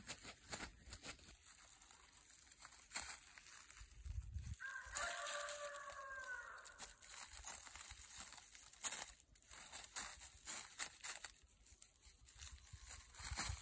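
Footsteps crunching and rustling through dry fallen leaves. About five seconds in, a drawn-out animal call of about two seconds stands out over them, falling slightly in pitch at the end.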